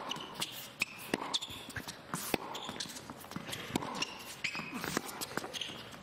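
Tennis rally: rackets striking the ball and the ball bouncing on the court, a sharp knock every second or so, mixed with short, high squeaks of tennis shoes on the court as the players move.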